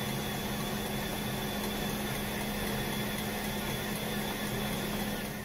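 Kangaroo enteral feeding pump running as it primes the tubing with formula: a steady mechanical hum with an even pitch.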